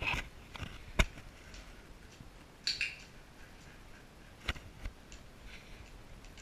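Scattered sharp taps and short rustles of a handler and a dog moving about on a wooden floor; the loudest tap comes about a second in, with two more close together later.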